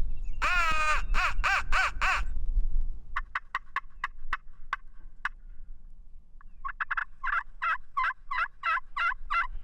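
Turkey calling: a drawn-out yelp with a few quick notes after it, then a string of sharp clucks (cutting), then an even run of about a dozen yelps, roughly four a second, starting near the end. Wind rumbles on the microphone in the first few seconds.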